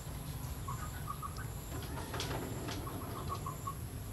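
Two short runs of quick chirping calls, about five notes each, over a steady low rumble, with a single click between them.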